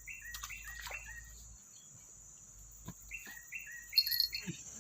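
A bird repeating a two-note call, a higher note stepping down to a lower one about three times a second, in two runs with a short gap between, over a steady high-pitched insect drone. A few soft knocks, and a brief sharper chirp near the end.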